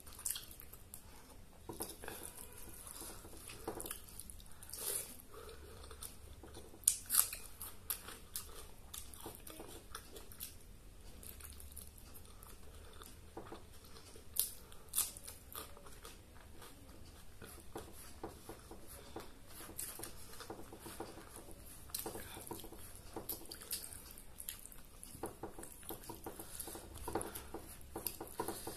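Close-up eating sounds of a person eating rice by hand off a banana leaf: steady chewing and lip smacks with the soft squish of fingers working the rice, and scattered sharp clicks. About halfway through come two crisp crunches, bites into a raw green chili.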